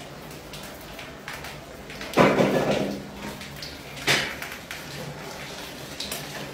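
Two knocks against a light, hard surface: a heavier one about two seconds in that rattles briefly as it dies away, and a sharper one about four seconds in, with faint scattered clicks between and after.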